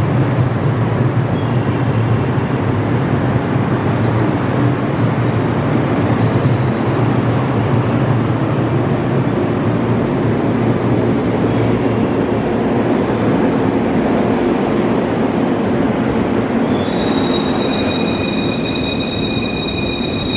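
JR 115-series electric multiple unit departing, its motors and wheels running steadily as the train pulls out along the platform. A few steady high tones start near the end.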